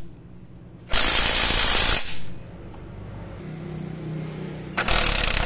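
Cordless impact wrench with a deep socket hammering on the monoshock's upper mounting nut to break it loose, in two bursts: one about a second long starting about a second in, and another starting near the end.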